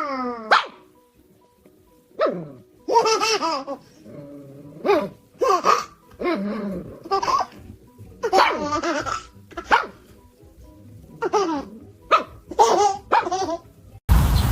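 A dog vocalising in a string of short howling, yowling calls and barks, each bending up and down in pitch. Near the end the sound cuts abruptly to a steady rushing noise.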